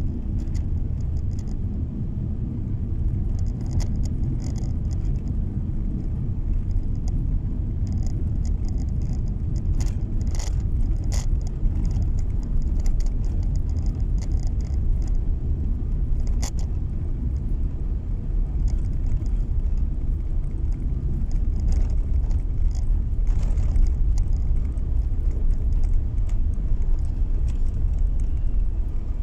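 Steady low road rumble heard inside a car driving on a snow-packed road, with scattered short crackles and ticks over it.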